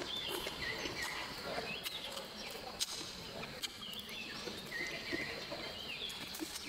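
Birds chirping: short rising-and-falling calls repeating about once a second, over faint chewing and mouth sounds of someone eating close by.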